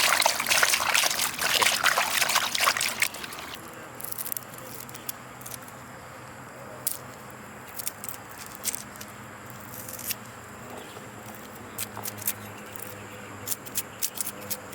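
Water pouring and trickling, stopping about three seconds in, followed by a few light clicks and knocks.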